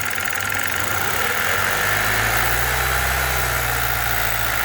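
2015 Kia Optima's four-cylinder engine running, given a gentle blip of throttle: the engine note swells from about a second and a half in and settles back toward idle near the end. It is running on a newly replaced ignition coil and spark plugs after a cylinder 2 misfire, with no vibration felt.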